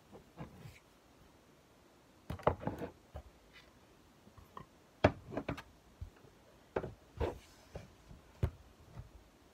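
Objects being handled and set down on a desk: a scattered series of short knocks and clatters, loudest about two and a half and five seconds in.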